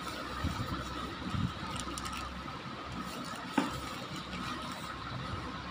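Plastic courier mailer bag rustling and crinkling as it is handled and pulled open by hand, with a sharp tap about three and a half seconds in.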